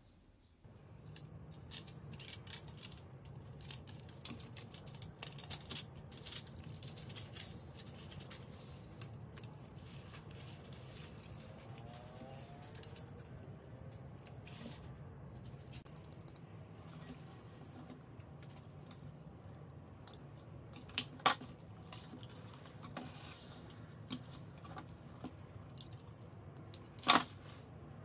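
Handling noises from a dismantled hair dryer's parts: light rattling and scraping of the heating element's coiled metal wire and plastic pieces, with two sharp clicks near the end, over a steady low hum.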